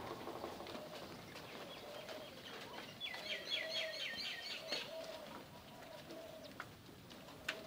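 Birds calling: a dove-like cooing repeated over and over, joined about three seconds in by a fast, high chirping trill that lasts about a second and a half.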